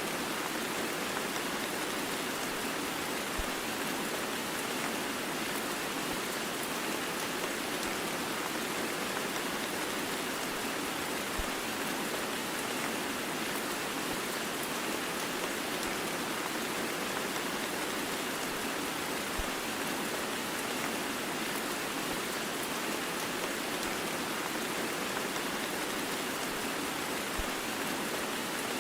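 Heavy rain blended with white noise: a steady, even hiss of rain that does not change.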